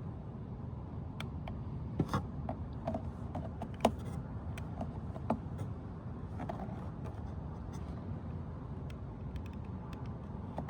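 Scattered light clicks and small scrapes of a piece of vinyl floor plank being cut and fitted, over a steady low background rumble.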